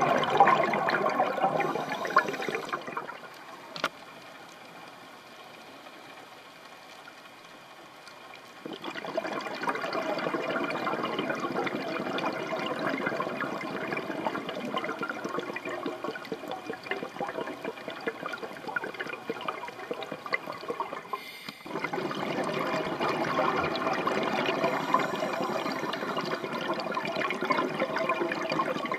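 Scuba diver's exhaled bubbles rushing out of a regulator underwater: a burst at the start, a quieter stretch of several seconds, then long bubbling stretches from about nine seconds in, broken once near twenty-one seconds.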